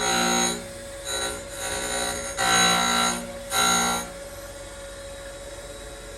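Clausing Covel 4001 surface grinder's wheel grinding a metal workpiece: a pitched screech that comes and goes about five times in the first four seconds, over the steady hum of the running spindle motor. After about four seconds only the motor hum remains.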